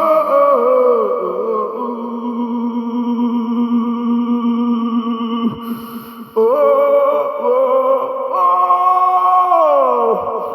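Music of long held tones, sung or hummed, with a few slow downward pitch slides. It fades briefly about six seconds in, then comes back louder.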